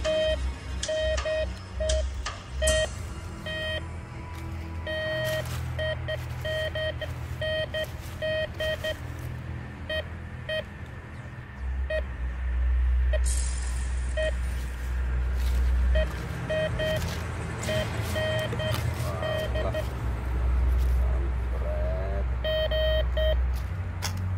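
Metal detector beeping in short bursts of one steady pitch, again and again, signalling a metal target under the coil while it is dug out. Scratching clicks of a hand trowel in soil and dry leaves, over background music with a heavy bass.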